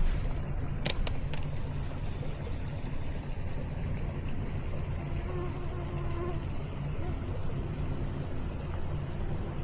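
Steady high-pitched insect chorus, one unbroken tone, over a low steady rumble.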